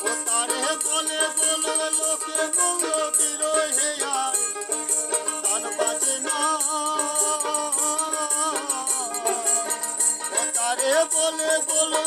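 Bengali Baul folk song: a voice singing a wavering, ornamented melody over jingling rattle-like percussion that keeps a steady beat.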